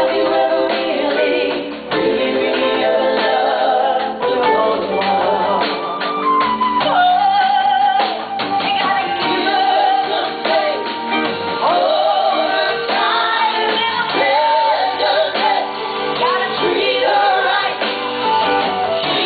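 A woman singing a slow ballad live with band accompaniment, her held notes wavering with vibrato.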